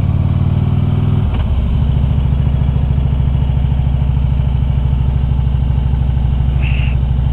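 Harley-Davidson Ultra Limited's V-twin engine running while the motorcycle is ridden. The revs drop about a second in, and it settles into a lower, steady pulsing beat. A brief high chirp comes near the end.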